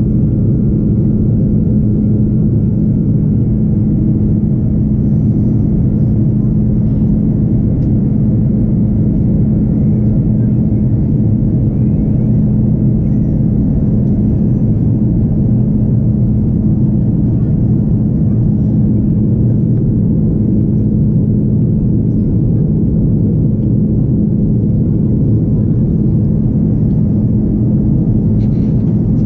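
Cabin noise of an Airbus A330 airliner in flight, heard at a seat over the wing: a loud, steady drone of the Rolls-Royce Trent 700 turbofans and rushing airflow, with a constant low hum.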